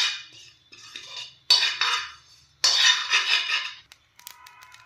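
Cumin seeds rattling and scraping in a pan on the stove as they begin to roast, in four strokes of about half a second to a second each. A light ringing clink comes near the end.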